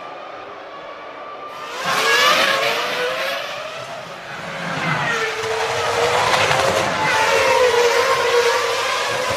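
Formula One V10 engines revving hard, the pitch repeatedly climbing and dropping with gear changes. The sound jumps louder just under two seconds in.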